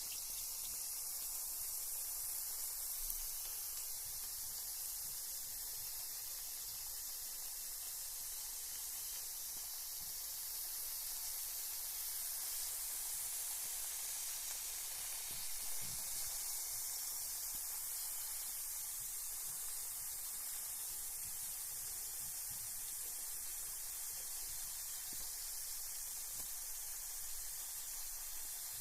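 Carbonated bath bomb fizzing in bath water: a steady high fizzing hiss of gas bubbles bursting at the surface.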